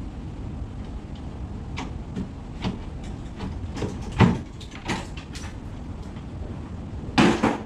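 Wooden cabinet panel being pulled loose by hand: a series of knocks and creaks, the loudest about four seconds in, then a louder wooden clatter near the end as the board is set down, over a steady low rumble.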